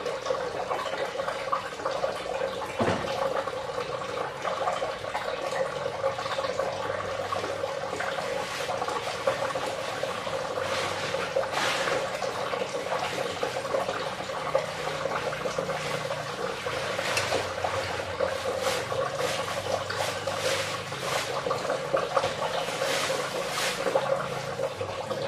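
Kitchen knife cutting chunks off a fresh cucumber held in the hand, the blade going through the crisp flesh in a run of short cuts that grows busier after about ten seconds. A steady background hiss runs underneath.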